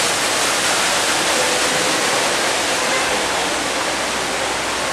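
Steady rush of falling water from a waterfall, an even hiss with no breaks, with faint voices far off behind it.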